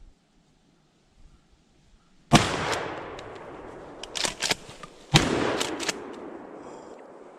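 Two close shotgun shots about three seconds apart, each echoing and fading away over a couple of seconds, with a few short sharp clicks between and after them. The shots of a deer hunter firing slugs at a deer.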